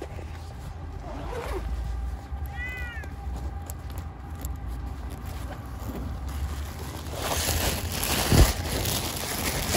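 A cat gives one short meow that rises and falls, about two and a half seconds in. Later comes a stretch of rough noise with a sharp thump. A steady low rumble runs underneath.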